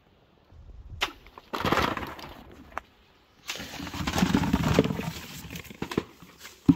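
Fresh fruit being handled: apricots knocked from a tree falling and rustling onto a plastic sheet, then plums tumbling from a plastic tub into a plastic bucket in a rough clatter, with a sharp knock near the end.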